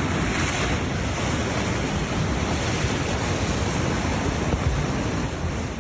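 Heavy storm surf crashing over a seawall and washing across a flooded walkway: a steady, loud rush of breaking water.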